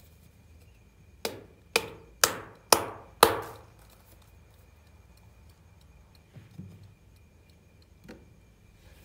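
Five sharp knocks on a hard surface, about two a second, each with a short ringing tail, followed later by a couple of softer knocks.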